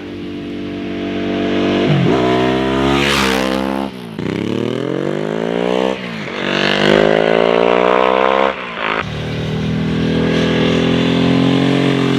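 Ducati Superbike 999's V-twin engine accelerating hard, its pitch climbing in repeated pulls that break off about four, six and nine seconds in, then running steadily high near the end.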